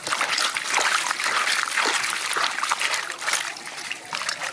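Hands swishing and rubbing cabbage leaves and leafy greens in a steel basin of water, with continuous irregular splashing and sloshing as the vegetables are washed.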